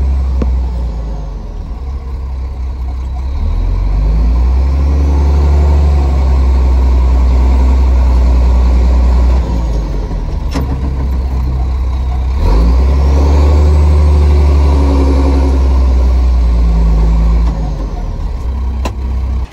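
Dump truck engine running loud and low, heard from inside the cab while driving. It pulls up in pitch, eases off about nine seconds in, pulls up again about twelve seconds in and drops near the end, with a couple of sharp knocks along the way.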